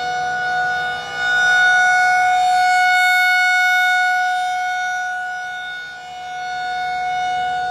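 Outdoor tornado warning siren sounding one loud, steady tone that swells and fades in loudness: rising about a second in, dipping near six seconds, then swelling again.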